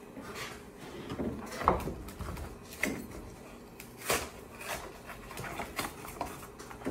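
A small plastic action figure handled and worked between the fingers: irregular little clicks, taps and rubs, the sharpest about a second and a half in and again about four seconds in.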